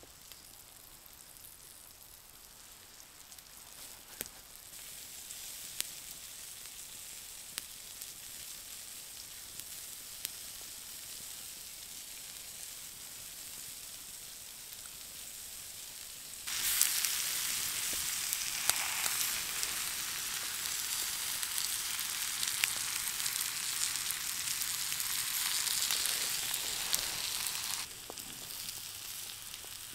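Steak sizzling on a hot flat rock over a campfire: a loud, steady sizzle that starts suddenly about halfway through and drops away near the end. Before it, a quieter hiss with a few sharp crackles.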